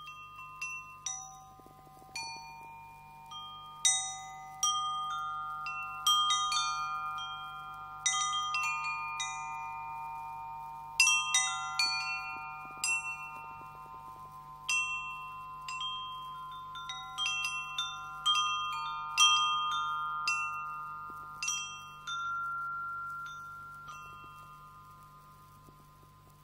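Handmade copper-tube wind chime tuned to the Chinese pentatonic Yu scale, its wooden clapper striking the tubes at irregular intervals, each strike a bright tap followed by long, overlapping ringing notes that die away near the end. The air column inside each tube is tuned by drilled holes to the metal's fundamental, so metal and air resonate together.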